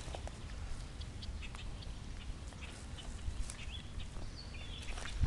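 Faint outdoor ambience: a steady low wind rumble with scattered small ticks, and a few short high bird chirps in the second half.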